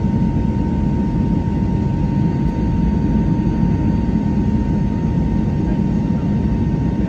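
Jet airliner running, a steady deep rumble with a thin, steady whine above it.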